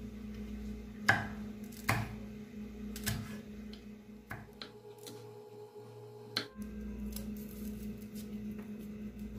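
Kitchen knife slicing green chillies on a wooden chopping board: a handful of sharp, irregular taps of the blade on the board, over a steady low hum.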